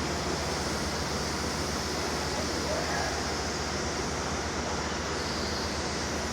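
Steady machinery noise: a low, rapidly pulsing rumble under an even hiss.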